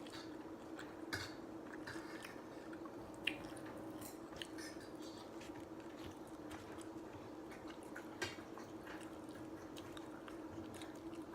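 A person chewing a mouthful of shrimp Alfredo pasta, with a few sharp clicks and soft wet mouth noises, over a steady low hum.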